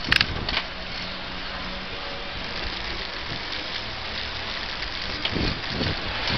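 Steady rolling and street noise from a bicycle ride along a city pavement, with a sharp knock about a quarter second in and a few low thuds near the end.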